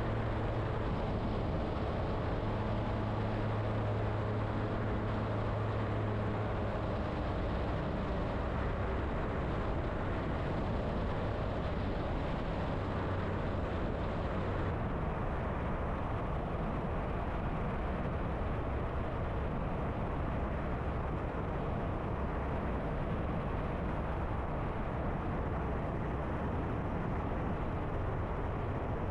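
Kitfox STi light aircraft's engine and propeller running steadily in cruise, heard from onboard with wind noise. A low steady hum is strong for the first several seconds and then fades into the general drone, and the sound turns duller about halfway through.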